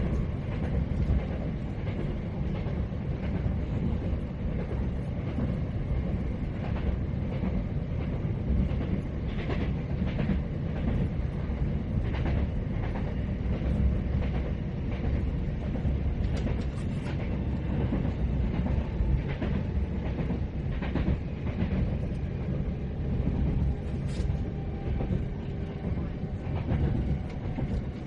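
Inside a moving train carriage: a steady low rumble with irregular clicks and knocks of the wheels running over the track. Faint steady whining tones come in during the last few seconds.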